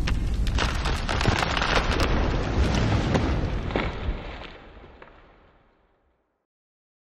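Logo-intro sound effect: a dense crackling noise with many sharp snaps and a low bed beneath, fading away about five seconds in to silence.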